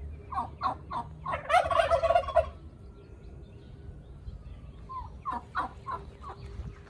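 Domestic tom turkeys gobbling. A quick series of short calls builds into a loud rattling gobble about a second and a half in, and another run of short calls comes near the end.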